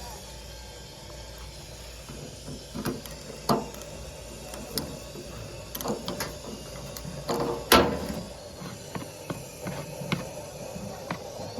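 Irregular mechanical clicks and knocks over a low steady hum, with one sharp knock standing out about two thirds of the way through.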